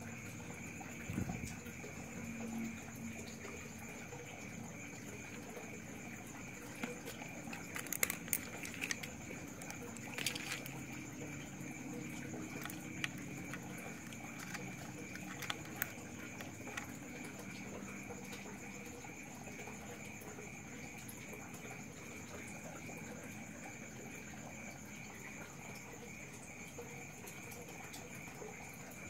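Scattered light clicks and taps of multimeter test probes and wires being handled against capacitor terminals, loudest about eight and ten seconds in, over a steady faint high-pitched whine.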